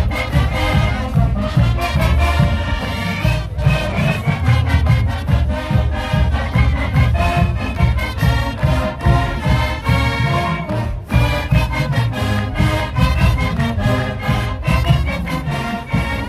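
Marching band playing: a brass section holding and moving through notes over a steady drum beat.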